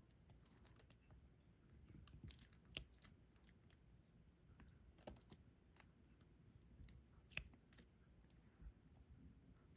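Faint, irregular small clicks and taps of a diamond-painting stylus picking up resin drills and pressing them onto the adhesive canvas.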